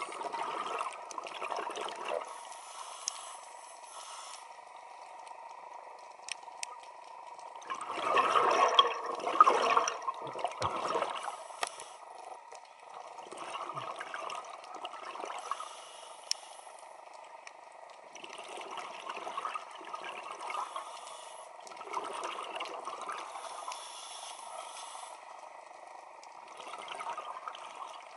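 Scuba diver's regulator breathing underwater: about six bursts of bubbling exhalation, each a couple of seconds long and a few seconds apart, the loudest about eight to eleven seconds in.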